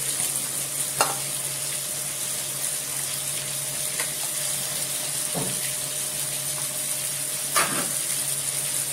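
Tomato-based masala gravy with chicken sizzling in a nonstick frying pan as a spatula stirs in freshly added tomato puree. The spatula knocks or scrapes against the pan about four times.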